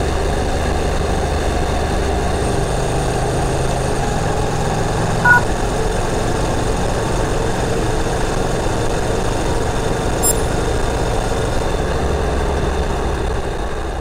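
Honda NC700X's parallel-twin engine running at a steady cruise, with wind and road noise, heard from an onboard camera on the moving motorcycle. A short two-tone beep sounds about five seconds in.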